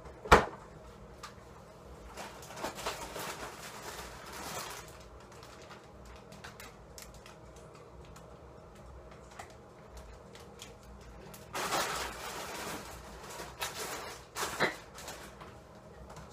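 Plastic bag of frozen french fries crinkling and rustling close to the microphone in two longer spells, with a sharp knock just as it begins and a few smaller clicks.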